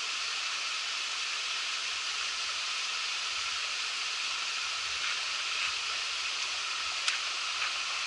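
Steady rushing of the Muppochora waterfall, an even hiss of falling water, with one brief click about seven seconds in.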